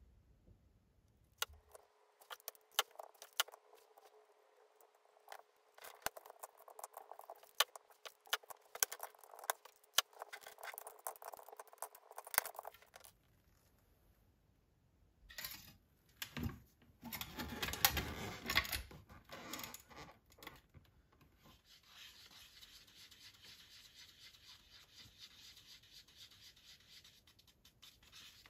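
Small sharp wooden clicks and taps as coloured pencils are pushed one by one into hollow bamboo tubes, over a faint steady hum. Then a louder stretch of knocking and rubbing as the bamboo bundle is handled. About 22 seconds in, steady fast scraping begins: a wooden stick stirring epoxy resin in a plastic cup.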